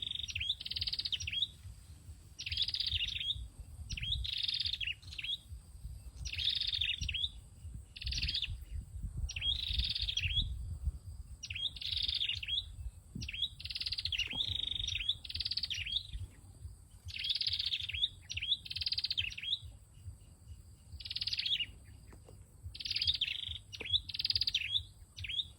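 A sâu đầu đỏ cage songbird giving short, high chirping phrases over and over, often two in quick succession with short pauses between, in its đánh lụp calling bouts. A low rumble runs under the first half.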